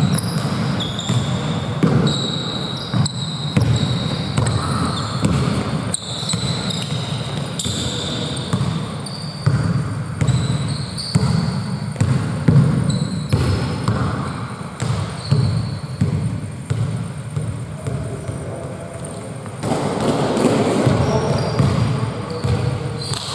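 Basketballs bouncing on an indoor court floor in a string of irregular thuds, with short high-pitched sneaker squeaks scattered throughout.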